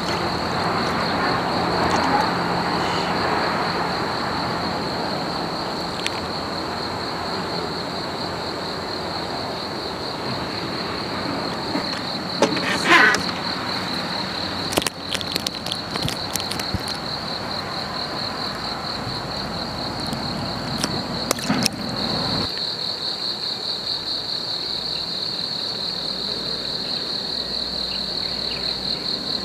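Insects chirring in a steady, high, even trill, over a background rush that drops away sharply about three quarters of the way in. A few sharp clicks and knocks come near the middle, the loudest about halfway through, as a small fish is swung in on the line and handled.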